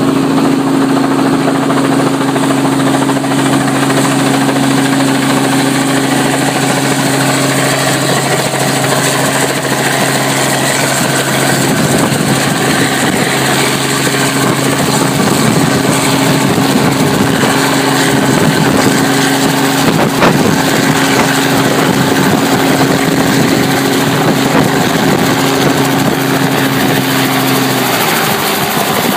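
Robinson R44 Clipper II helicopter landing: main-rotor chop and the piston engine's steady drone, loud and close, as it hovers in and settles onto the helipad. The engine note drops in pitch near the end, once it is on the skids.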